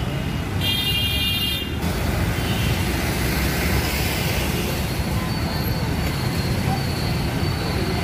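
Busy city road traffic: motorcycles, auto-rickshaws and cars running and passing close by in a steady rumble. A short high-pitched tone sounds about half a second in and stops just before two seconds.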